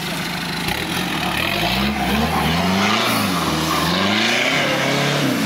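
Off-road vehicle's engine idling steadily, then from about a second and a half in revved up and down again and again, its pitch rising and falling several times.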